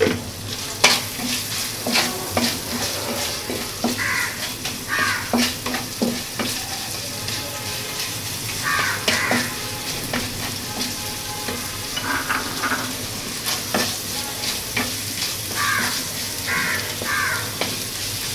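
Onions, garlic and dried red chillies sizzling in hot oil, stirred and scraped around the pan with a wooden spatula, with frequent sharp clicks of the spatula against the pan.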